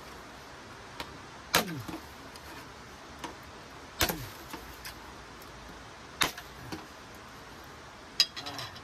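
A bamboo tube being chopped to size with a blade: four sharp strikes about two seconds apart, the first two trailing off in a brief falling tone.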